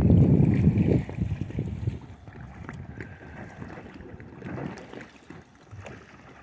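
Wind buffeting the microphone for about the first second, then light water splashing and lapping as a kayak paddle works the water beside a folding hard-shell kayak at the shoreline.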